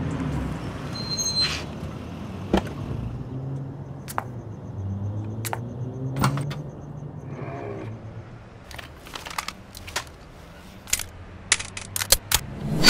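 A car engine running low and steady as the car rolls in, fading after about seven seconds. Then comes a run of sharp metallic clicks and clacks as a submachine gun is handled, ending in a loud clack.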